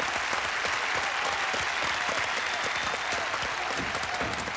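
Steady applause: many pairs of hands clapping together at an even level.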